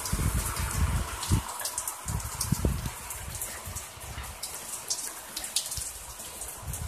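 Rain falling steadily on a wet street and nearby surfaces, with many sharp ticks of drops landing close by. A low rumble sits under it for the first second and a half or so, then fades.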